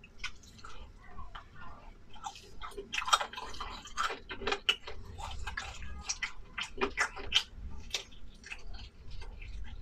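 A person chewing food, with irregular wet mouth clicks and smacks.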